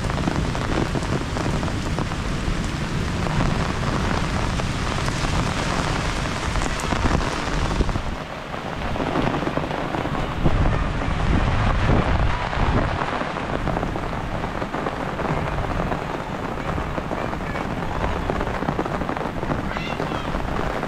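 Heavy rain pouring steadily, with a low rumble of thunder about halfway through.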